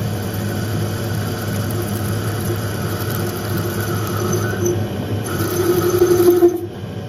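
Metal lathe running, its motor and gearing humming steadily while an 8 mm toolbit in a diamond tool holder cuts the end of a spinning metal bar. The cutting noise grows louder and then drops off sharply near the end.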